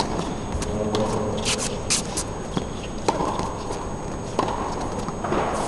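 A tennis serve and rally on an indoor hard court: a racket strikes the ball, followed by ball bounces and further hits about every second or so, with a few brief sneaker squeaks on the court surface.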